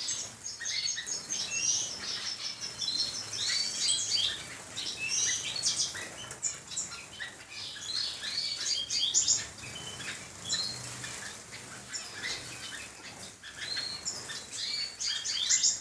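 A mixed flock of small aviary birds, finches and canaries, chirping and trilling over one another in a steady busy chorus of short high calls.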